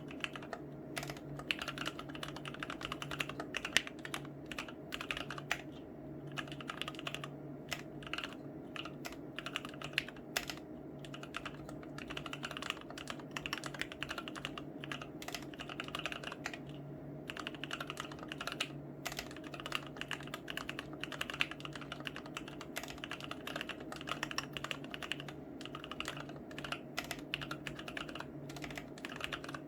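Typing on a Womier K66 mechanical keyboard with Gateron Yellow linear switches in milk housings and XDA keycaps: a fast, uneven clatter of keystrokes that never stops, over a faint steady hum.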